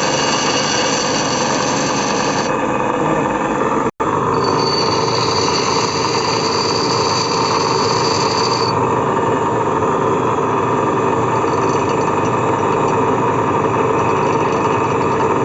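Workshop power tool running steadily during repair of a pinion gear's worn teeth, with a high whine added for a few seconds in the middle. The sound cuts out for an instant about four seconds in.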